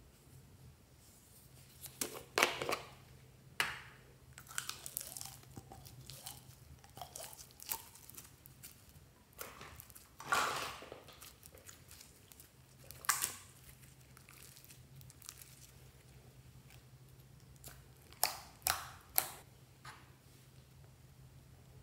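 Hands squeezing and pulling apart crunchy foam-bead slime and handling plastic slime containers: scattered crackling, crinkling bursts, with three sharp plastic clicks near the end.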